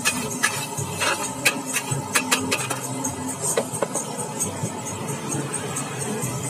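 Metal spatula clanking and scraping against a steel wok as noodles are stir-fried, in sharp irregular strikes several times a second, over background music.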